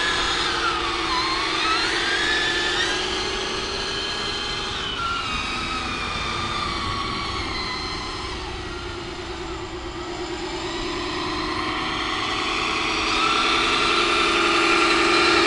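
Radio-controlled Peterbilt semi truck driving, its motor whine rising and falling in pitch as it speeds up and slows down. The sound grows louder near the end as the truck comes closer.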